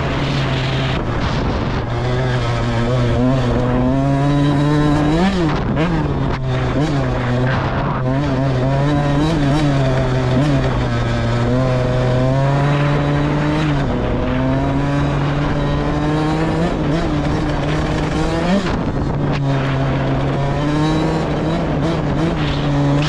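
Off-road vehicle engine running hard on a sand ride, its pitch rising and falling every few seconds as the throttle is worked through the bumps.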